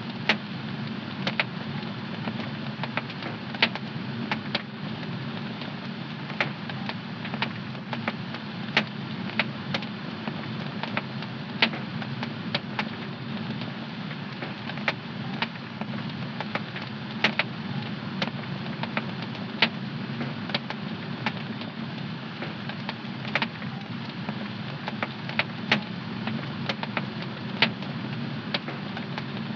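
Wood fire crackling in a home fireplace: a steady low rush of flame with sharp, irregular pops and snaps, one to a few each second.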